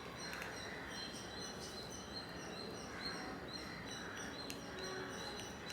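Faint birds chirping in short, evenly repeated high calls over a steady background hiss.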